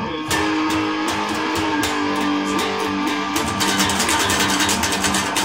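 Electric guitar being played: held notes over steadily picked strings, with faster, denser picking in the last two seconds.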